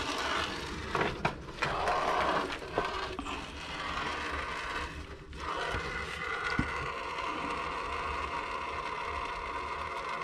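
Leftover water draining from a freshly cut copper supply pipe into a plastic jug, a steady hiss, with a few knocks and scrapes of handling in the first three seconds.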